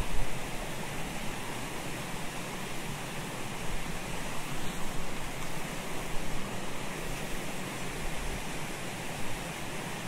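Mountain stream rushing over rocks: a steady hiss of flowing water.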